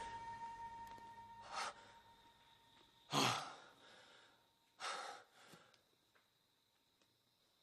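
A man breathing hard after waking with a start: four separate heavy breaths, gasps and sighs, the loudest about three seconds in. The tail of a song fades out at the beginning.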